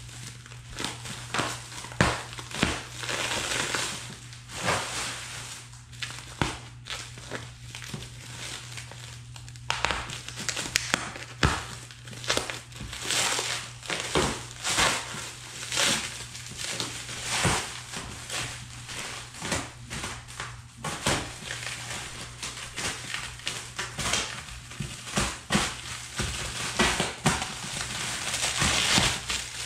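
Plastic stretch wrap being pulled and peeled off a large cardboard box, crinkling and crackling in irregular bursts, quieter for a few seconds partway through.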